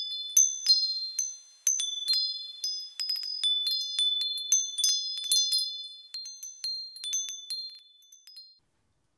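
Wind chimes tinkling: irregular high-pitched strikes ringing over one another, thinning out and stopping about a second before the end.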